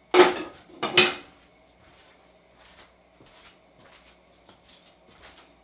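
Two loud clanks of metal cookware about a second apart, each with a short ring, followed by light scattered clicks and rustles of kitchen handling.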